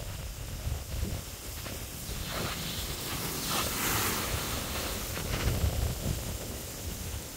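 Wind buffeting the microphone as a steady low rumble, with ocean surf on rocks swelling to a hiss about four seconds in as a wave breaks, then fading.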